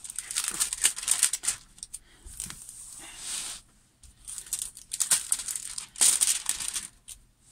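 Clear plastic cover film on a diamond painting canvas crinkling and rustling as hands smooth and press it flat, in irregular bursts.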